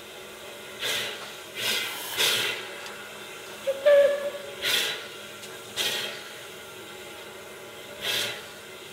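Steam escaping in short, irregular hissing puffs from a standing steam locomotive and steam wrecking crane. A brief high-pitched squeal about four seconds in is the loudest sound.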